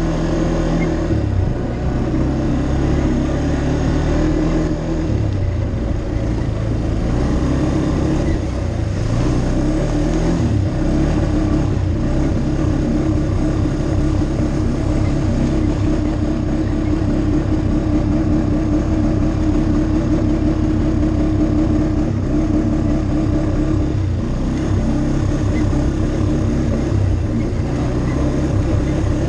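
ATV engine running while riding along a dirt trail, its pitch rising and falling over the first ten seconds or so, then holding fairly steady.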